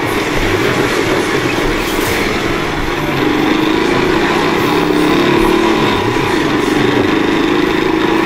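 Motorcycle engine running while riding, with the engine note rising and falling a little, under steady wind and road noise on the bike-mounted microphone.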